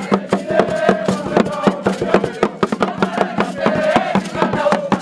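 Voices singing together over a fast, even beat of sharp percussive strikes, typical of a campfire song with clapping or drumming.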